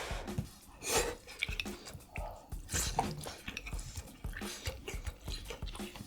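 Close-miked eating sounds: wet chewing with irregular small clicks and smacks of the mouth.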